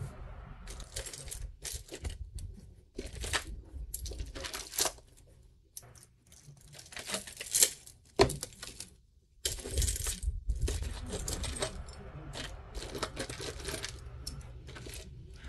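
Costume jewelry being rummaged by hand: beads, bead bracelets and metal chains clinking and rattling against each other in irregular clatters, with a couple of brief lulls midway.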